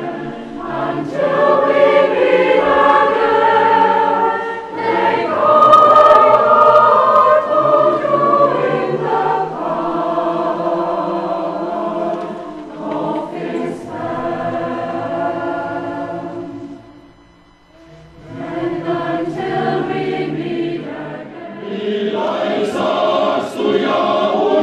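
Church choir singing sustained, many-voiced phrases; the singing breaks off briefly about three-quarters of the way through, then starts again.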